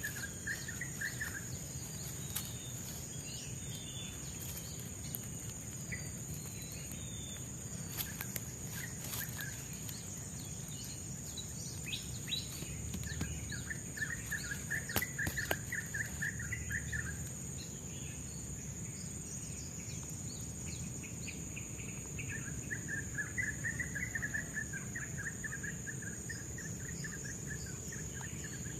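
Forest ambience: a steady high-pitched insect drone over a low rumbling background, with a chattering trill that comes in three spells. The trill is brief at the start, lasts a few seconds in the middle, and returns for the last six seconds or so. A few faint sharp clicks can be heard.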